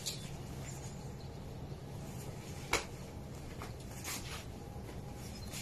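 Clothes being handled and hung on a folding drying rack: soft rustling with a few short, light clicks, the clearest about two and three-quarter seconds in, over a steady low hum.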